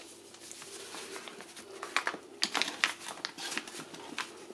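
A paper flour bag crinkling and rustling as rye flour is scooped out of it into a bowl, in a run of short crackles and ticks that starts about two seconds in.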